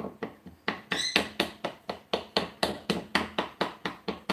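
A fork pricking holes in an unbaked pie crust, its tines tapping against the pie plate in a quick, even run of about five taps a second. This is docking the crust so it won't bubble up in the oven.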